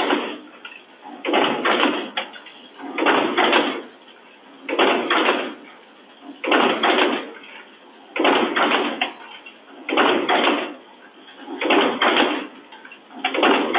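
Automatic bag-packaging machine running, each working cycle a burst of mechanical clatter and hiss that repeats roughly every 1.7 seconds.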